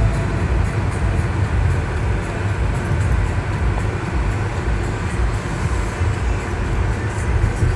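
Steady road noise heard from inside a moving car's cabin: a low rumble of tyres and engine with no clear breaks.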